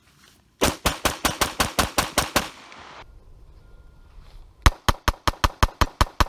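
Glock 48 9mm pistol fired rapidly, two quick strings of about ten shots each at roughly six shots a second with a pause of about two seconds between. The shooter's thumb rests on the slide, and the pistol cycles every round without a malfunction.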